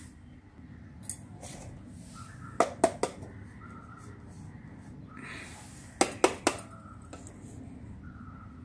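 Small plastic toy kitchen pieces clacking against each other and the tiled floor as they are set down and handled: a single click about a second in, then two quick runs of three sharp clacks, around three and six seconds in.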